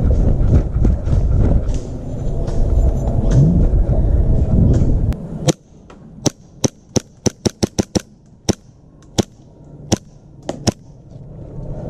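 Heavy wind rumble on the microphone, then about halfway through the background drops away and a string of about a dozen sharp airsoft gun shots follows, fired one at a time at an uneven, quick pace with several close together.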